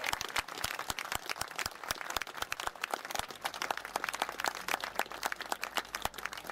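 Crowd applauding: many separate hand claps, no words.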